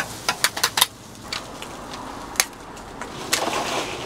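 Cooking utensils clacking at a taco stand's griddle: a quick run of about six sharp clacks in the first second, then two more spaced out.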